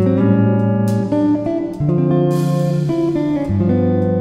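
Background music led by plucked guitar over bass notes, the chords changing every second or so.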